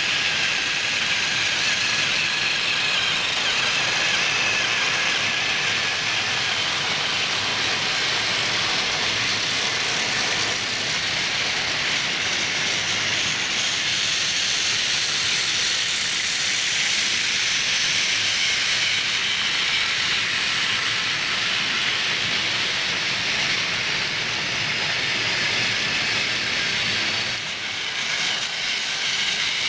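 Battery-powered Thomas & Friends toy train engines running on plastic track: a steady, high whir of their small electric motors and gearboxes, dipping briefly near the end.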